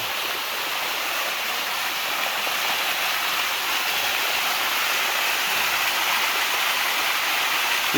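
Steady rush of water flowing down a limestone cascade waterfall.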